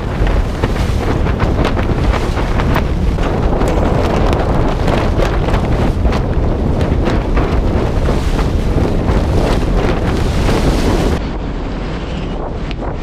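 Strong wind buffeting the microphone over a Contessa 35 sailboat crashing through waves, with water rushing along the hull and many sharp spray hits and taps. About eleven seconds in the sound drops in level and turns duller as it switches to another camera.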